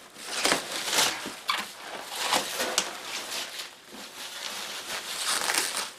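Plastic bubble wrap being pulled and unwound by hand, crinkling and rustling in irregular crackles.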